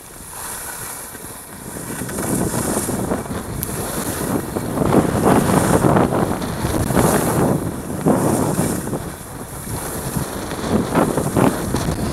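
Wind rushing over the microphone while skiing downhill, with the hiss of skis sliding on snow swelling and fading in surges about a second apart through the turns.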